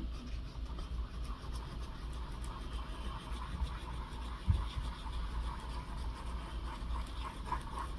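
Faint scratching and rustling of paper being handled and pressed down, with one soft knock about four and a half seconds in, over a steady low hum.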